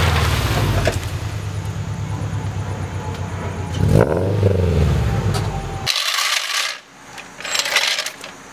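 Car engine running with a pulsing low note, revving up and back down once about four seconds in, then cutting off abruptly; two short bursts of hiss follow near the end.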